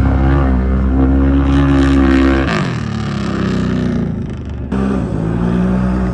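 Off-road race vehicle's engine running hard with a steady note, which drops off about two and a half seconds in, then abruptly settles into a new steady pitch near the end.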